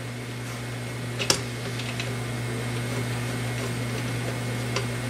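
A steady low hum, with a single sharp click about a second in and a few faint metallic ticks from a screwdriver working the screws of a steel motor mount plate.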